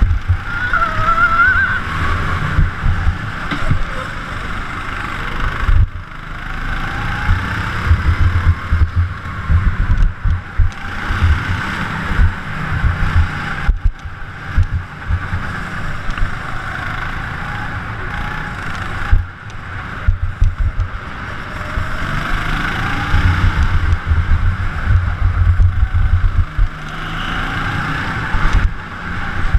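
Go-kart engine running hard on the lap, its pitch rising and falling as the kart accelerates out of corners and slows into them, with the sound dropping away briefly a few times. Wind buffets the onboard microphone underneath.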